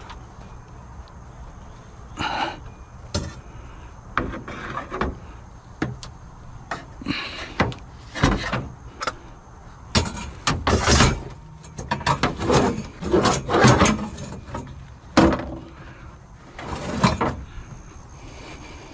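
Metal trampoline frame pieces clanking and knocking as they are shifted, folded and pushed into place, in a long run of irregular, sharp knocks with a busy stretch in the middle.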